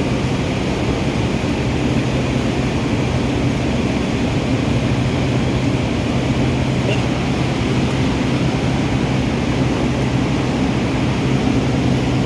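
2014 Ford EcoSport engine idling steadily with a misfire.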